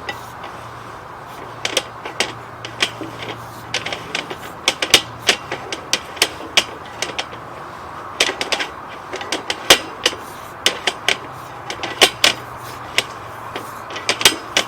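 Irregular sharp clicks and knocks, a few a second in clusters, over a steady hum, as a sewer inspection camera's push cable is fed up a debris-filled lateral.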